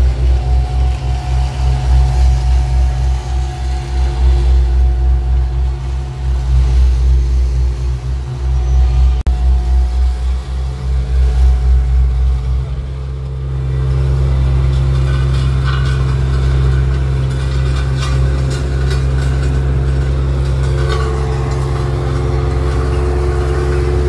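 Small tandem asphalt roller's engine running close by, a low pulsing drone that settles into a steadier hum about halfway through, with rakes scraping through loose hot-mix asphalt.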